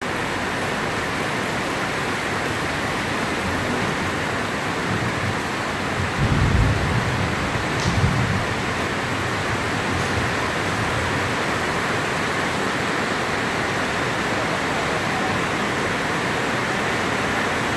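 Rain falling on a metal building's roof, a steady loud hiss, with a brief low rumble about six seconds in.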